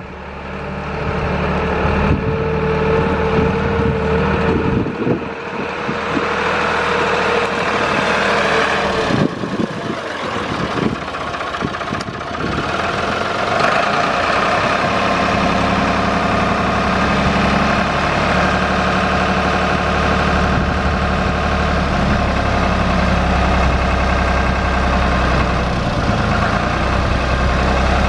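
Manitou MC 40 rough-terrain forklift's diesel engine running. A steady whine sits over it while the machine drives for the first nine seconds or so. After a change of note it runs on steadily while the hydraulic mast raises the forks.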